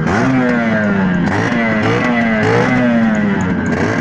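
Small two-stroke motorcycle engine being revved in repeated blips: each one jumps up in pitch, then falls away, about five times.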